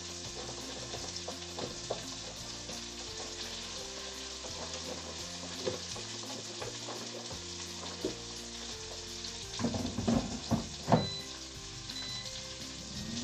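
Food frying and sizzling in a hot pan, with a few sharp clicks and knocks from a utensil about ten seconds in.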